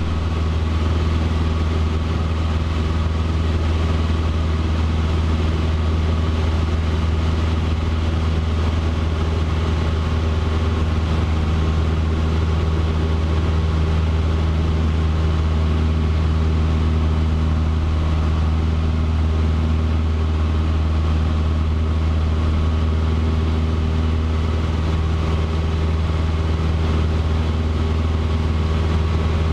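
Cessna 150's four-cylinder Continental O-200 engine and propeller running steadily in flight, heard inside the small cabin.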